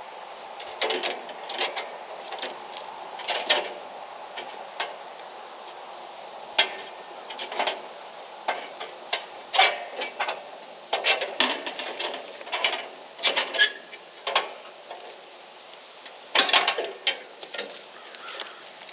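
Irregular clicks, knocks and light metal clanks, some in quick clusters, from handling and fitting a new blade onto a band sawmill.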